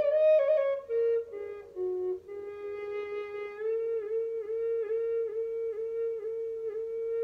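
E-flat flute made of old-growth white Atlantic cedar playing a slow melody. A few short notes step downward, then a long low note is held, broken by quick regular dips about twice a second.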